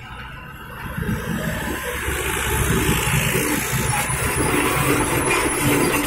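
Diesel truck engines and tyre noise on the road, growing sharply louder over the first two seconds as a truck comes close, then a steady heavy rumble with a hiss above it.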